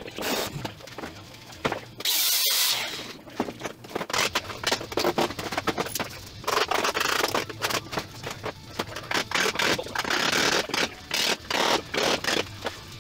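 Tools scraping, prying and knocking on the rusty sheet-metal front frame of a 1954 VW bus: a quick, uneven run of small knocks and scrapes, with a brief louder rush of noise about two seconds in.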